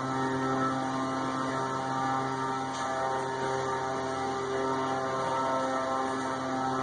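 Steady, unchanging hum with a stack of overtones, like an electric motor or mains hum.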